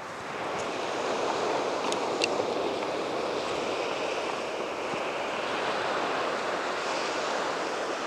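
Small waves of a calm sea washing onto a sandy beach: a steady, even hiss of surf.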